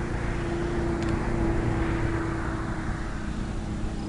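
Distant jet fighter's engine noise as it flies across the sky: a steady rushing sound with a low steady hum, swelling slightly around the middle.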